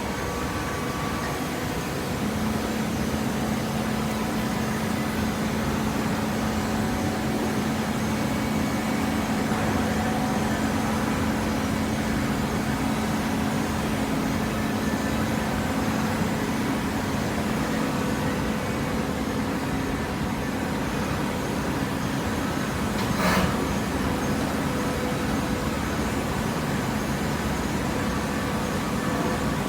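Hydraulic baler running, its motor and hydraulic pump giving a steady mechanical hum, with a steady pitched drone that comes in about two seconds in. One short sharp knock late on.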